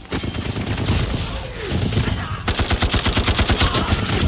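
Battle gunfire: scattered shots at first, then from about halfway a sustained burst of rapid automatic fire at roughly ten rounds a second.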